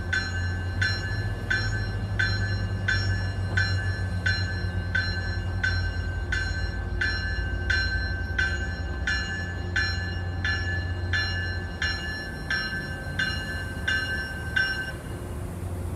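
MBTA commuter train's bell ringing steadily, about one and a half strikes a second, over the low rumble of the train rolling slowly past. The bell stops about fifteen seconds in.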